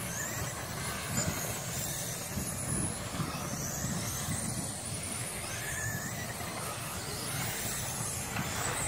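Several radio-controlled dirt-oval sprint cars racing, with a steady whine from their motors that keeps rising and falling in pitch as they lap the track.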